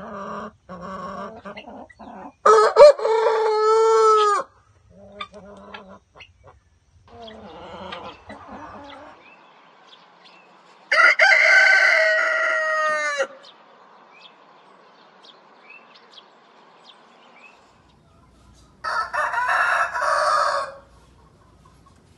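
Roosters crowing: three loud crows, each about two seconds long, from different cocks. Softer clucking of chickens comes between them.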